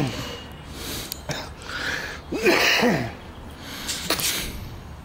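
A person sneezing about halfway through, among short bursts of voice.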